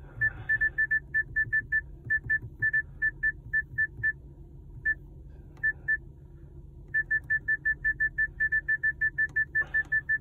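Short, identical high beeps from a Volkswagen Golf Mk7's in-car menu as the time is set, scattered at first and then a fast run of about five a second near the end, over the low hum of the idling engine.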